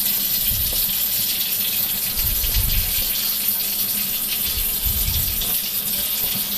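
A steady, loud hiss, with a few soft low thuds as a wet hand works a ball of pizza dough in a plastic tray.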